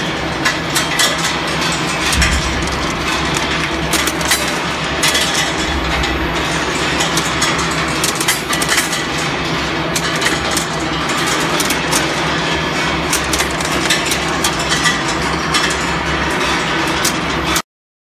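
Steel-ball skew rolling mill running: a steady heavy machine hum with rapid, irregular metallic clicks and knocks of steel balls. The sound cuts off abruptly near the end.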